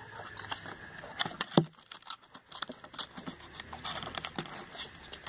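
Light, irregular clicks and small knocks of glass nail polish bottles and product boxes being handled and set down, with one louder knock about a second and a half in.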